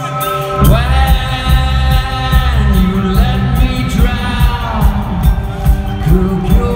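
Rock band playing live over an arena PA, with a male lead vocal singing over guitars and keyboards. The full drums and bass kick in about half a second in.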